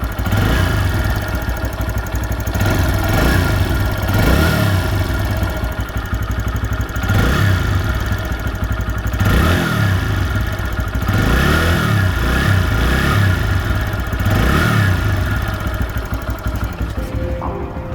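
TVS Raider 125's single-cylinder engine revved repeatedly in short throttle blips, about one every second or so, falling back between them. The owner is demonstrating a persistent ticking ("tik-tik") noise from the engine.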